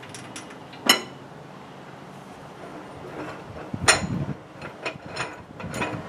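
Metal parts and hand tools clinking and knocking on a workbench. Two sharp, ringing metal strikes stand out, about one second in and about four seconds in, among lighter clicks.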